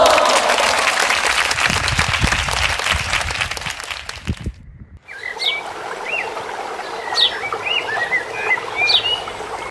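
Dense crackling, rustling noise with some low rumble for about the first half, cut off abruptly. After that, birds call in a series of short, high chirps and quick upward-sweeping notes.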